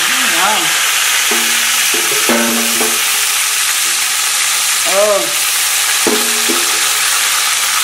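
Red palm oil with onion sizzling steadily in an aluminium pot as a mound of potato greens starts frying in it.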